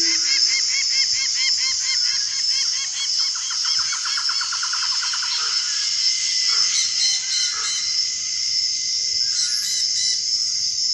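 Rainforest ambience from a film soundtrack: a steady high insect drone, with a bird calling in quick repeated notes, several a second, for about the first half, then scattered calls.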